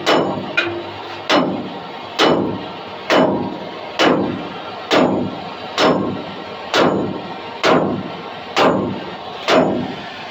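Heavy hammer blows on steel, about one a second and eleven in all, each ringing briefly, as a seized trailer wheel hub and bearing is beaten to free it from the spindle.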